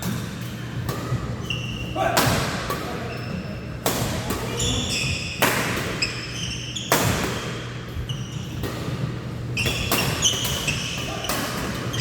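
Badminton play: rackets striking the shuttlecock in sharp hits at irregular intervals, with short high squeaks from court shoes on the floor between them.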